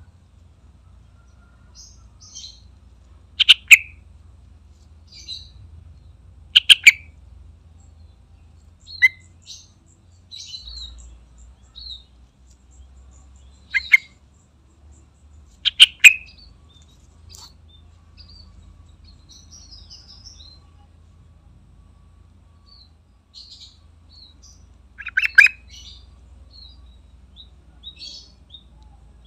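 Yellow-vented bulbul (trucukan) singing: short, loud bubbly phrases every few seconds, with softer chirps between them.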